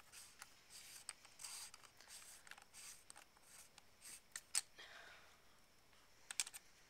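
Faint rubbing and scattered light clicks as the back cap is screwed back onto a Dangerous Power G4 paintball marker's body.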